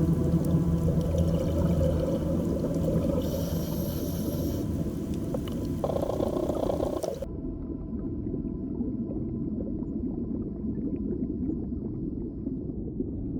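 Underwater ocean ambience: a low rumbling wash with a few long held tones. A brief brighter hiss comes about three seconds in, and after about seven seconds the high end drops away, leaving a muffled low rumble.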